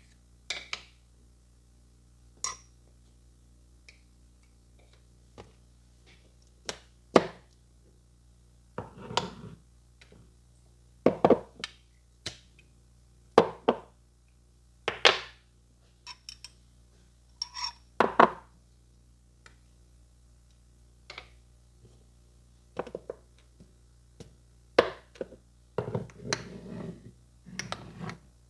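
Close-miked clicks and taps from a barber's metal grooming tools and hands working on a customer, about fifteen sharp irregular strokes with short scraping, rustling stretches about nine seconds in and near the end.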